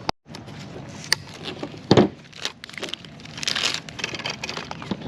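Hand work on a fuel pump assembly: scattered clicks and scrapes of plastic and metal parts, a sharp knock about two seconds in, and a short rasping patch a little later.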